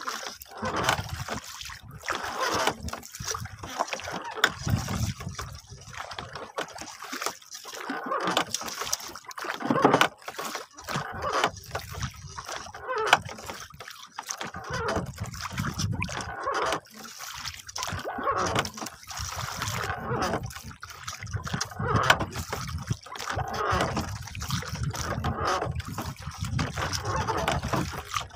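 Sea water splashing and trickling along the side of a wooden fishing boat under way, with irregular low rumbles and small knocks as a baited longline is paid out over the gunwale.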